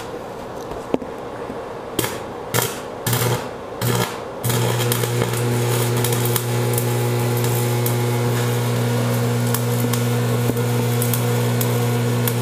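AC stick-welding arc from an old Marquette 180 Special buzz-box welder set at 110 amps, welding cast iron. A few short sputters come as the arc is struck, then from about four and a half seconds the arc burns steadily with a loud low buzz and crackle.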